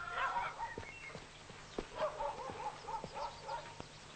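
A dog giving short, high yelps: a couple near the start and a quick run of about five about two seconds in.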